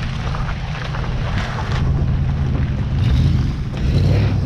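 Wind rumbling on the microphone over the low, steady running of idling truck and Jeep engines.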